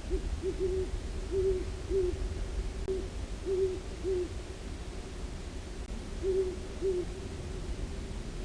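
Great horned owl hooting: a rhythmic series of deep hoots, about six in the first four seconds, then a short pause and two more. A steady low rumble runs underneath.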